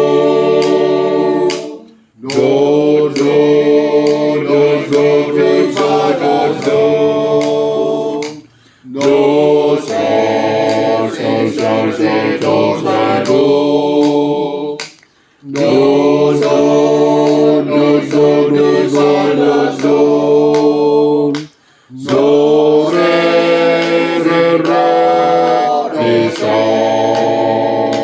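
Men's choir singing a cappella in several parts, in sustained phrases of about six seconds each with brief pauses for breath between them.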